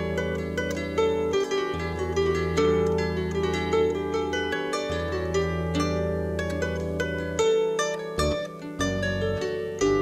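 Solo harp being played: plucked melody notes ringing over held low bass notes that change every couple of seconds, with a quicker run of notes near the end.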